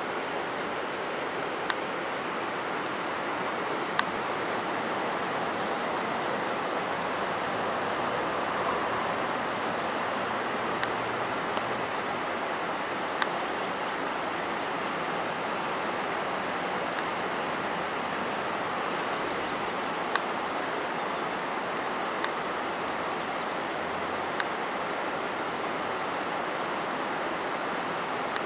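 Steady rush of river water flowing over a gravel shallow, with a handful of short, sharp ticks scattered through it.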